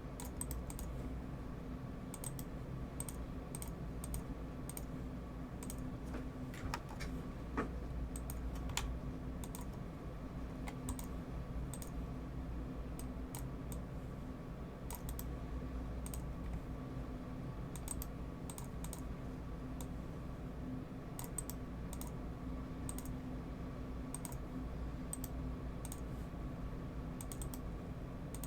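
Computer keyboard and mouse clicks, scattered and irregular, over a steady low hum.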